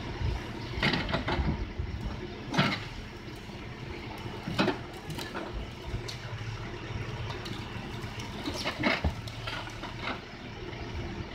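Hidromek backhoe loader's diesel engine running steadily while the rear bucket digs, with several sharp knocks and clanks from the bucket and arm working the soil and stones.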